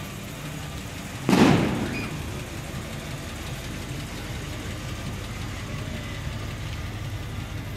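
Ford pickup truck's engine running steadily at a slow crawl. About a second in there is one sudden loud bang that dies away within about half a second.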